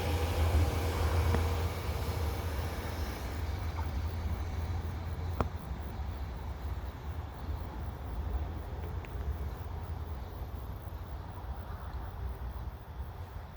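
JR 383 series electric limited express train receding after passing, its rumble fading away over the first few seconds. A low wind rumble on the microphone remains, with one sharp click about five seconds in.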